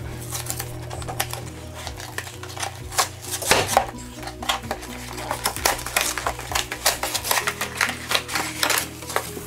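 Cardboard toy box being opened by hand: irregular tearing, crinkling and clicking of cardboard and plastic packaging.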